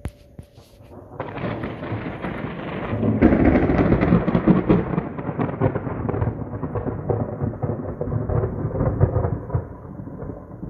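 Thunder rolling across the sky: a long rumble that starts about a second in, swells to its loudest a couple of seconds later, then slowly dies away while still rumbling.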